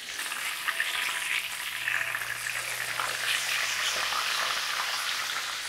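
Breaded pork schnitzel frying in plenty of hot oil in a pan: a steady sizzle with fine crackling.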